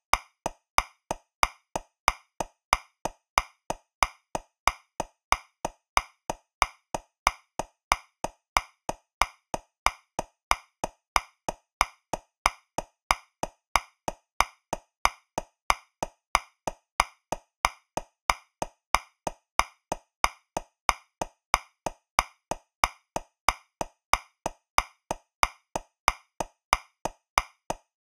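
Metronome clicking steadily at 185 beats per minute, about three clicks a second. It counts in 2/4, so every other click is accented and louder to mark the first beat.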